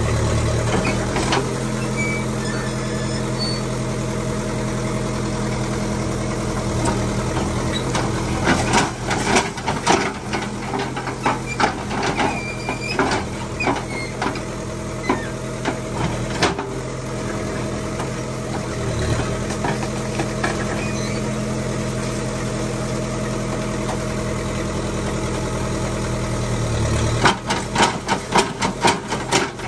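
LiuGong backhoe loader's diesel engine running steadily while the rear backhoe arm digs. Clusters of clanks and knocks from the bucket scraping and striking rock and earth come from about eight seconds in for several seconds, and again near the end.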